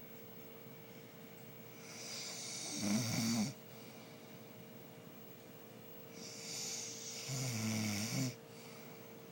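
A man snoring: two long snores about four seconds apart, each a breathy rush that ends in a low, rattling snore.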